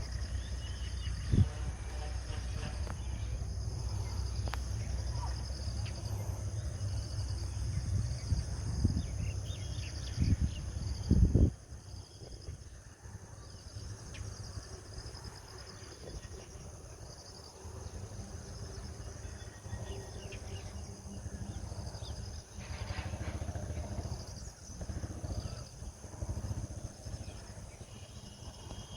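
Enfield Fury 175cc two-stroke motorcycle engine running, with a loud burst about eleven seconds in before it cuts off suddenly. After that, outdoor background of insects and birds.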